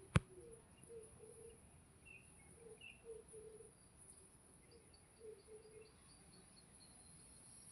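Crickets trilling steadily and high-pitched, with short soft low calls coming in small groups and one sharp click just after the start.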